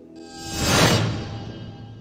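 A whoosh that swells to a peak just under a second in and then fades, over sustained background music: a TV show's logo transition sting.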